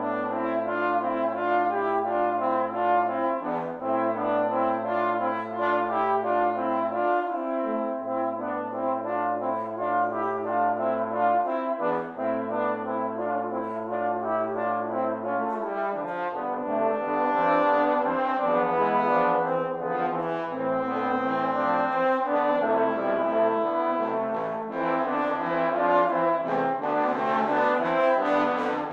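Trombone quartet playing a classical piece. For the first half the lowest part holds long notes of three to four seconds each while the upper parts move in shorter notes above it. About halfway through, the low part starts moving in shorter notes too.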